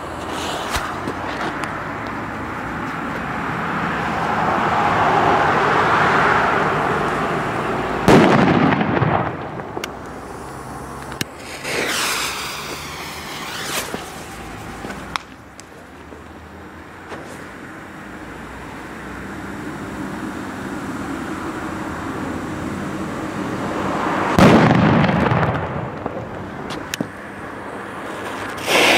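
Firecrackers going off: two sharp loud bangs about sixteen seconds apart, each followed by ringing, with another bang right at the end. Before each main bang a hiss slowly rises, and between them comes a short sputtering burst of about two seconds.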